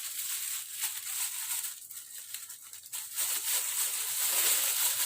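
Crinkling and rustling of deodorant packaging being handled and opened by hand, a dense crackle that gets louder about three seconds in.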